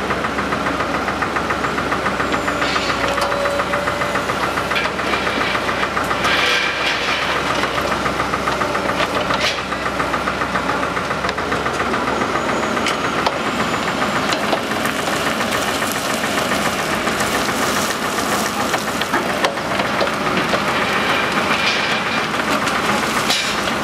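Wacker Neuson 9503 wheeled excavator's diesel engine running steadily under hydraulic load as the boom lifts and lowers a concrete element, with a few short knocks along the way.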